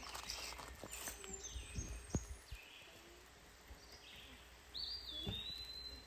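Wild birds chirping, one giving a high whistled note that rises and then holds steady for about a second near the end. A few sharp clicks of metal tongs against the grill pan come in the first half.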